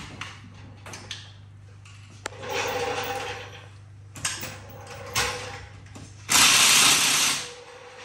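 Power impact wrench on the roadster's wheel nuts, running in short bursts between metal clanks; the longest and loudest burst, about a second, comes near the end. A steady low hum sits underneath.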